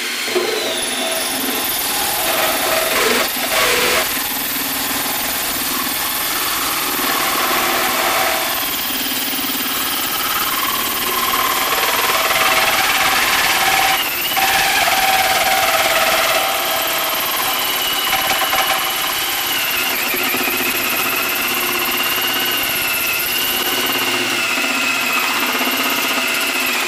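Cordless drill driving a 1¼-inch hole saw through the double-layer sheet-metal lid of a steel ammo can: a steady run with a high squeal of the saw teeth cutting metal. This is the cut through the top layer of the lid.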